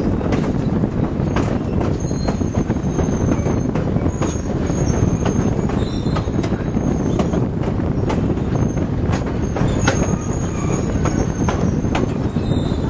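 Ontario Northland mixed train running: a steady rumble of wheels on rail with irregular clicks and brief high-pitched wheel squeals coming and going.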